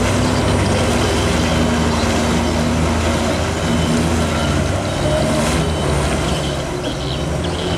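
Diesel truck engine running hard under load, a steady low drone, as the truck strains to get through deep mud.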